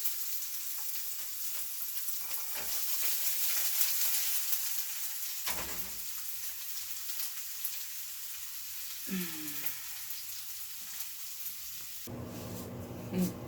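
Stir-fry of pork and vegetables sizzling steadily in a hot pan. The sizzle cuts off suddenly near the end, leaving a low room hum.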